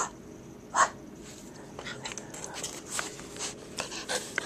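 Cairn Terrier making short sounds right at the microphone: two short loud sounds less than a second apart at the start, then a rapid run of snuffling sniffs as its nose presses against the camera.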